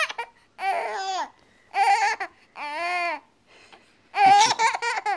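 Infant's high-pitched squealing laughs in four short bursts, the pitch arching up and down in each; the loudest comes near the end.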